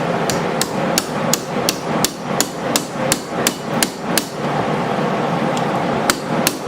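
A hammer striking a pin to drive it into a folding pocket knife's frame. It strikes about three times a second for roughly four seconds, pauses, then strikes twice more near the end.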